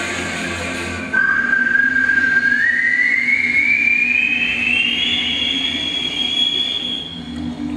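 Choir voices imitating a vehicle on a journey: a rushing noise under a single high whine that comes in suddenly about a second in, climbs slowly in pitch, then holds and fades near the end.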